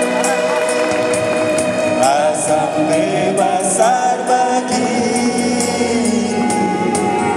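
A man and a woman singing a slow song into microphones over amplified backing music with a steady beat.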